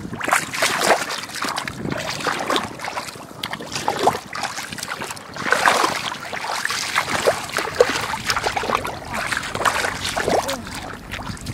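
Shallow water sloshing and splashing irregularly, the sound of someone working in a flooded rice field.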